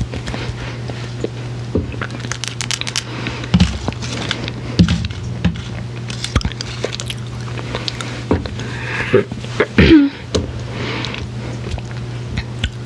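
Close-miked ASMR mouth and hand sounds into a foam-covered microphone: scattered wet clicks and smacks with hands rubbing, a few short louder mouth noises about nine to ten seconds in, over a steady low hum.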